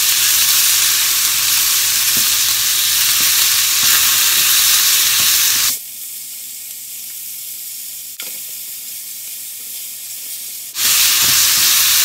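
Thinly sliced beef and onion sizzling in hot oil in a frying pan while being stirred with long cooking chopsticks. The sizzle drops quieter for about five seconds in the middle, then comes back at full strength near the end.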